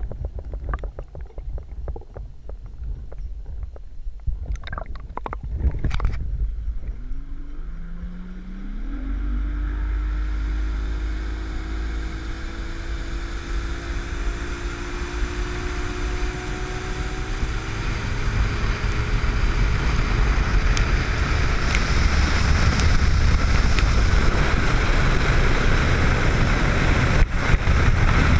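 Boat motor speeding up about a quarter of the way in, then running steadily while the rush of wind and water grows louder. Scattered knocks come before it.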